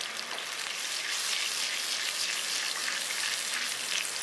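Tamarind kuzhambu bubbling and sputtering in a kadai at the boil, a steady crackling hiss, while a ladle stirs the freshly added spice powder into it.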